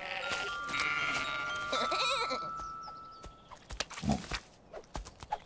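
A cartoon sheep's wavering bleat about two seconds in, over two held high notes. The sound then fades to a few soft taps.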